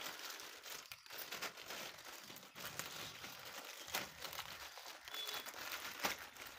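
Plastic crinkling and rustling as LED bulb parts are handled, with scattered small clicks and taps of plastic.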